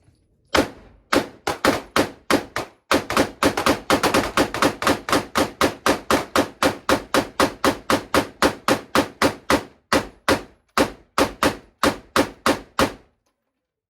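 Semi-automatic gunfire: a few single shots, then a fast string of about five shots a second for some seven seconds, then slower single shots that stop about a second before the end.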